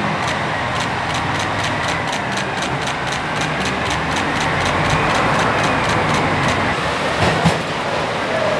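JR Hokkaido KiHa 283 series diesel express train pulling out, its diesel engines running, under the rapid clicking of many camera shutters, several a second. A single sharp knock comes about seven seconds in.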